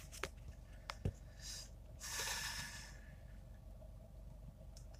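Quiet room tone with a few small clicks in the first second, then a short breath out through the nose about two seconds in.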